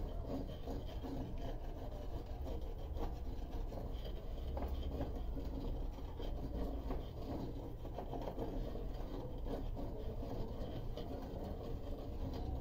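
Mason's trowel scraping and rubbing wet mortar against masonry and a steel grille frame, a continuous rasping without sharp knocks, as the grille is bedded into the wall.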